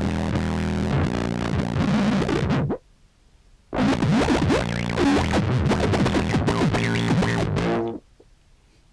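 Contrabass clarinet sub-bass sample played through effects pedals with random, tremolo-like modulation: a low pitched drone with wavering, gliding tones that cuts out abruptly, with near silence around three seconds in and again near the end.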